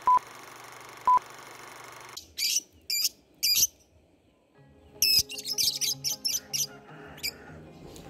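Two short film-countdown leader beeps, a second apart, over a steady hiss. Then, from about two seconds in, a lovebird chattering in clusters of shrill high chirps, thickest in the second half.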